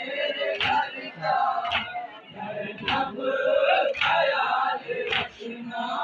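A group of men chanting a Muharram mourning chant in unison, with a sharp collective strike about once a second in time with it: the hand-beating of matam.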